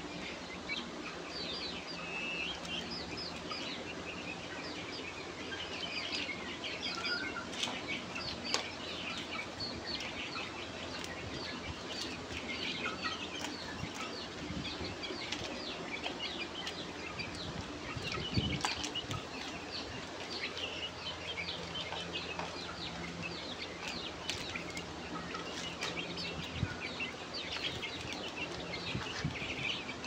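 A flock of White-crested Black Polish chickens chattering with many short, high chirps and clucks, over rustling in wood-shaving litter, with a few sharp taps.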